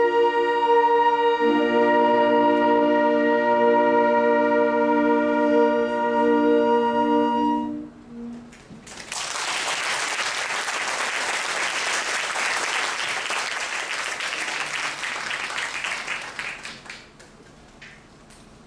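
A saxophone ensemble holds a final sustained chord, which cuts off about eight seconds in. After a short pause the audience applauds for about eight seconds, the clapping fading away near the end.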